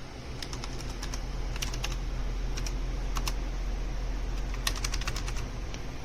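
Typing on a Logitech low-profile mechanical keyboard with GL switches: irregular bursts of sharp key clicks, several keys in quick succession at a time, over a low steady hum.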